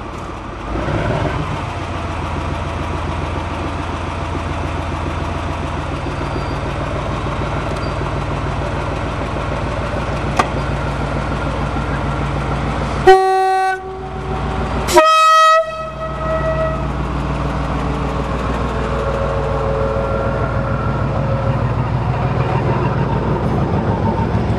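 D1 diesel multiple unit's diesel engine running steadily as the train rolls past, growing slowly louder. About halfway through come two short horn blasts two seconds apart, the first lower-pitched and the second higher.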